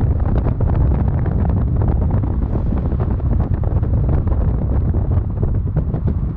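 Wind buffeting the microphone: a loud, steady low rumble with many small crackles.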